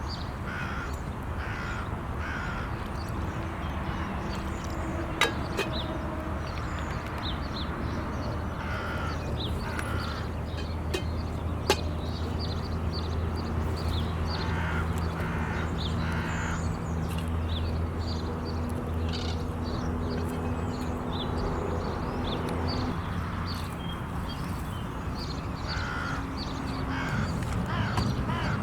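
Crows cawing in short bursts of repeated calls, several times, over a steady low drone. Two sharp clicks stand out.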